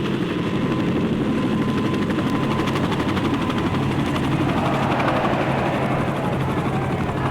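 Helicopter hovering, its engine running steadily under a rapid, even chop of the rotor blades, reproduced from a 1963 stereo LP sound-effects track. About halfway through, a second wavering mid-pitched sound swells in behind it.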